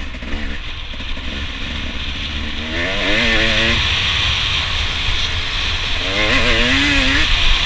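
KTM 250SX single-cylinder two-stroke engine running hard under the rider, with a raspy high-pitched note. It gets louder about three seconds in, and its pitch wavers up and down twice.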